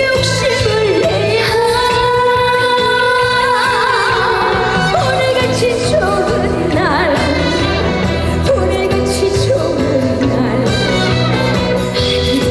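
Live trot song: a female voice singing long held notes with wavering vibrato over a band accompaniment with a steady beat.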